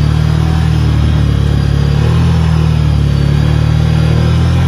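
Side-by-side UTV engine running steadily under way, a deep, even drone heard from inside the open cab, with a faint high whine rising and falling.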